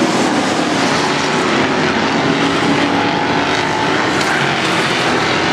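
Several race-car engines running at speed around the oval, a steady loud engine drone.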